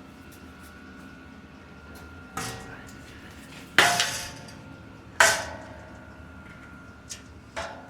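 Metal objects clanking against each other or onto a hard surface, each with a short ring: three loud clanks about a second and a half apart, the middle one loudest, then two lighter clinks near the end.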